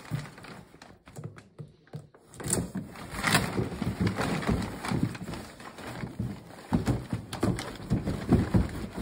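A large cardboard box being cut open and turned over by hand: scraping and rustling of the cardboard with irregular knocks, busier and louder after the first couple of seconds.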